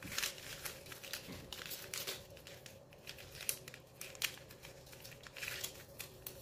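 Paper banknotes rustling and crinkling in the hands as they are leafed through and counted, in short irregular bursts.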